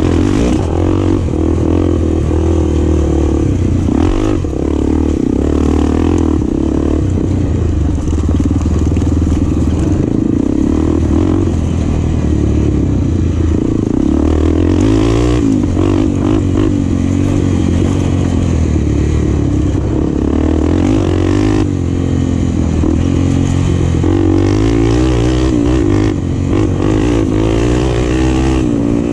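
Enduro motorcycle engine running hard and continuously, its pitch rising and falling as the throttle opens and closes.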